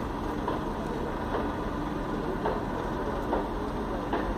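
Steady low rumble of cars running in the test yard, with no single sharp event.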